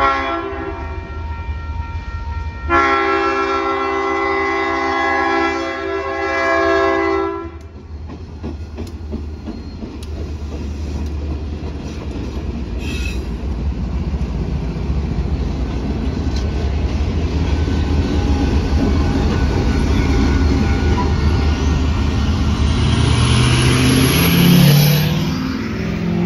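Diesel freight train passing a grade crossing. The lead locomotive's air horn sounds: the tail of one blast right at the start, then one long chord blast of about five seconds a few seconds in. After that the locomotives and freight cars roll past with a steady low rumble and wheel clatter, and near the end a road vehicle's engine revs up, rising in pitch in steps.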